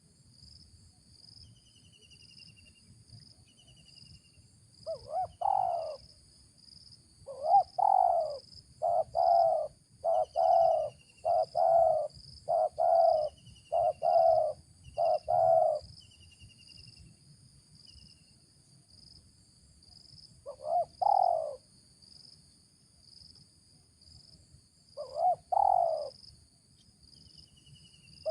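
Spotted dove (tekukur) cooing: a phrase about five seconds in, a run of about seven coos in quick succession, then two more spaced well apart near the end. Faint chirps of small birds and a steady high insect buzz sit behind it.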